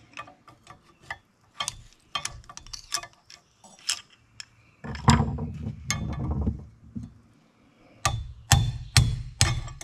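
Hammer driving a chisel against a partly split axle-shaft wheel bearing to break the rest of it off: about four sharp metal strikes roughly half a second apart near the end. Before them come lighter metallic clinks and taps of steel tools being handled, with a heavier knock about halfway through.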